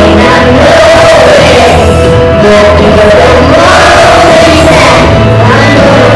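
A group of young schoolchildren singing a song together, a small children's choir holding long, steady sung notes.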